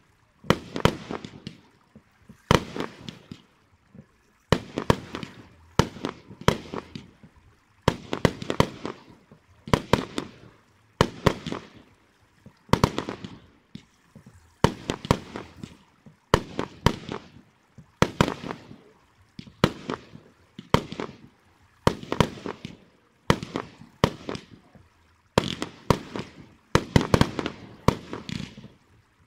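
Fireworks display: aerial shells fired and bursting one after another, a sharp bang every second or two, each trailing off in crackle.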